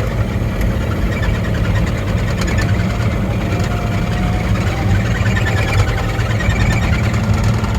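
Mini excavator's diesel engine running steadily at constant speed while the machine drives forward on its tracks.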